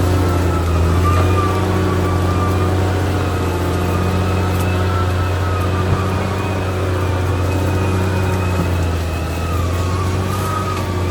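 Caterpillar D6R XL bulldozer's diesel engine running steadily under work, with a higher whine wavering slightly in pitch above the engine note.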